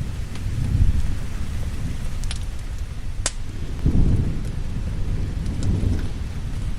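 Steady rain with low rolling thunder that swells about a second in and rumbles loudest near four seconds, with a few sharp pops in between.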